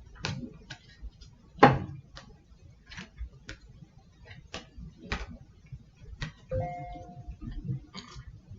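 Scattered clicks and knocks of objects being handled in a small room, with one louder knock about a second and a half in. A short two-tone beep or chime sounds about six and a half seconds in.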